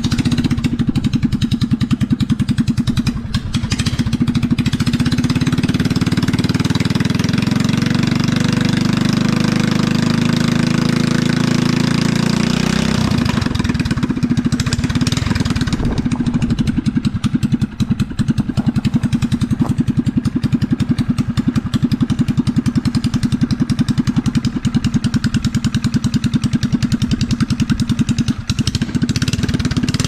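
Harbor Freight Predator single-cylinder engine on a minibike, idling. It is revved up from about four seconds in and held high for several seconds, then drops back to a steady idle about halfway through.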